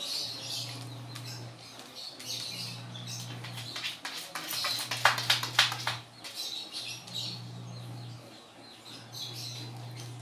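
A Pomeranian's claws scratching and scrabbling at the inside of a plastic basin, in a quick run of scrapes loudest about halfway through. High chirps come and go, and a low hum cuts in and out every second or two.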